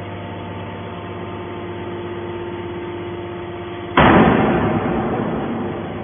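Hydraulic scrap-metal baler's power unit running with a steady hum while its top lid folds down, then a sudden loud metal bang about four seconds in as the lid shuts, ringing and fading over about two seconds.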